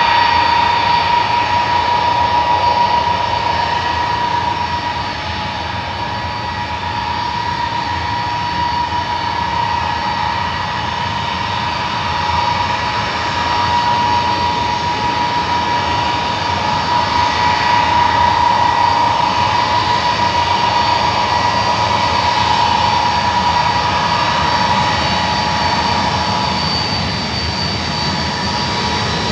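Ilyushin Il-76LL flying testbed taxiing on its four turbofans: three D-30KP-2s and a PD-14 fitted in place of the fourth. It makes a steady high jet whine over a broad rush, swelling and easing a little as the aircraft moves.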